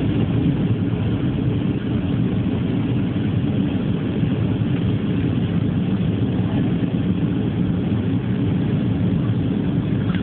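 Airliner on its landing approach: a steady low rumble of jet engines and rushing air, unchanging throughout.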